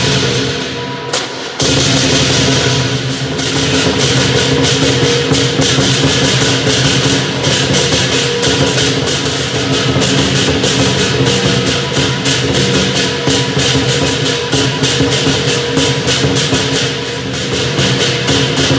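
Southern lion dance percussion: drum, cymbals and gong beating continuously to accompany the lion. The cymbals stop briefly about a second in, then resume.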